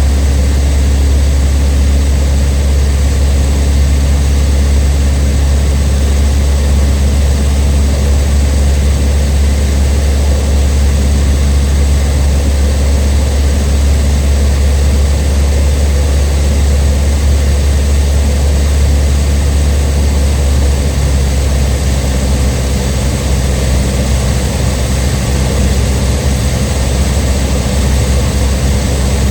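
Cessna 152's four-cylinder Lycoming O-235 engine and propeller droning steadily in flight, easing slightly lower about 21 seconds in.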